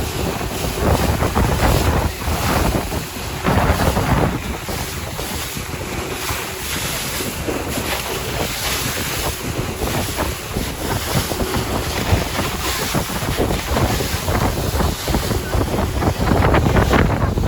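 Wind buffeting the microphone over the rush of water and engine noise of a motor boat under way, rising and falling in gusts.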